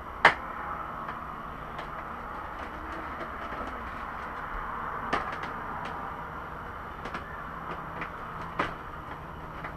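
Sharp clicks and light knocks of plastic fairing push clips and panels being worked loose by hand on a sport bike, the loudest just after the start and others about five and eight and a half seconds in, over a steady hiss and low hum.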